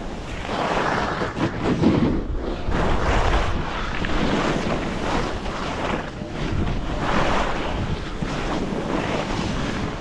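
Wind rushing over the microphone of a helmet or body camera while skis carve and scrape through choppy, cut-up snow, the noise swelling and fading with each turn about once every second or so.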